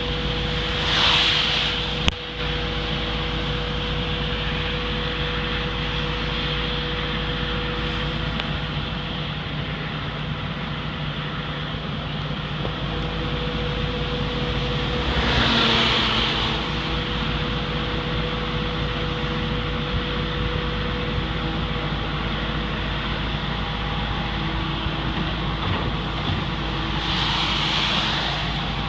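Gradall 4300 II excavator running steadily: a continuous mechanical drone with a constant hum. Three brief swells of hiss come about a second in, midway, and near the end, and a sharp click comes about two seconds in.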